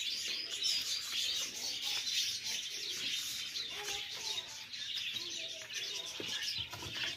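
Many small birds chirping at once in a dense, steady chatter of short high calls.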